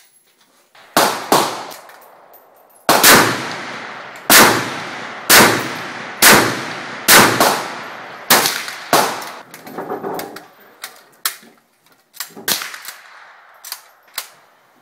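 VZ-58 Sporter semi-automatic rifle in 7.62x39mm being fired shot by shot, about one round a second, each sharp crack trailing off in a long echo. About nine loud shots come in the first nine seconds, followed by fainter, scattered shots.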